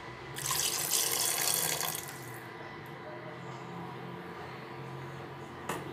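Water running or pouring for about two seconds, then stopping.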